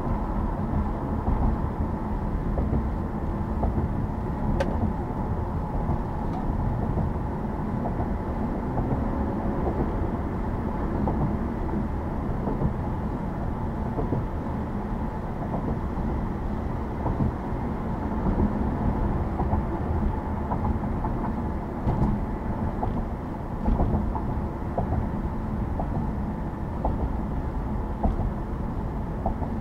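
Car driving along a road: a steady low rumble of tyres and engine that holds even throughout, with a few faint clicks here and there.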